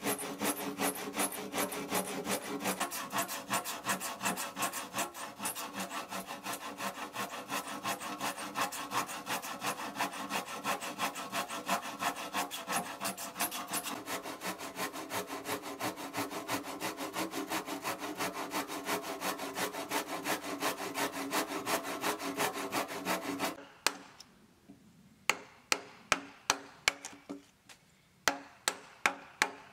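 Hand saw cutting across a wooden beam in quick, even strokes, about three a second, sawing the sides of a dovetail groove. Near the end the sawing stops, followed by a series of sharp wooden knocks as a chisel is worked into the groove to chop out the waste.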